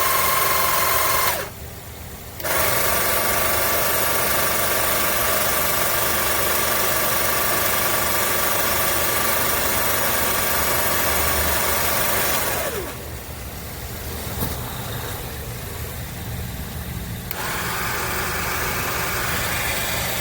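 The 12V electric motor of a car jack kit running with a steady whine. It stops briefly about a second and a half in, then restarts. About 13 seconds in its pitch drops and it runs quieter, then it picks up again near the end.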